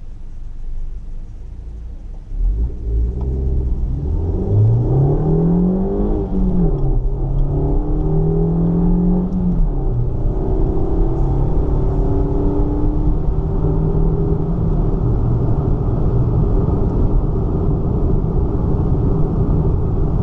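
Suzuki Baleno's stock 1.4-litre K14B four-cylinder engine pulling hard: the revs climb, fall sharply at an upshift, climb again through the next gear, fall at a second shift, then settle into a steady run with low road rumble beneath.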